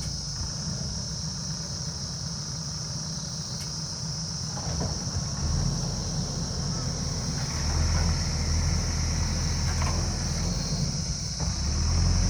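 JCB backhoe loader's diesel engine running, growing louder for a few seconds around two-thirds of the way through and again near the end as it works.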